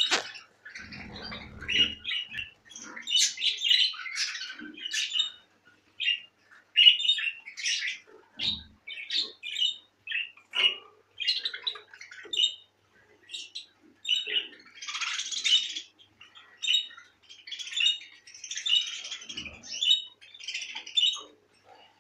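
A cage of budgerigars chattering, a continual run of short high chirps and squawks, with a few soft low bumps among them.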